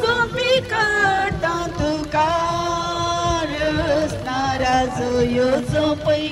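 Devotional singing: a voice carrying a slow melody with long, wavering held notes.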